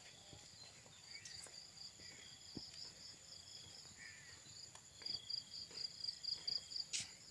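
Field insects calling in a steady high shrill, with a rapid pulsing chirp growing louder from about five seconds in. Faint rustling clicks, and one sharp click near the end.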